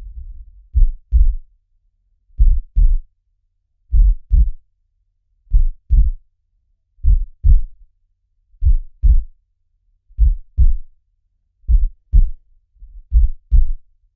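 A slow heartbeat: pairs of low, soft thumps in a lub-dub pattern, about one beat every second and a half, with silence between the beats.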